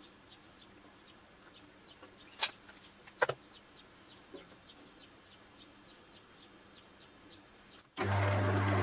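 Faint chirping repeating about three times a second, with two sharp clicks around two and a half and three seconds in. About eight seconds in, the wood lathe is switched on and its motor starts a loud, steady hum as it spins the handle blank.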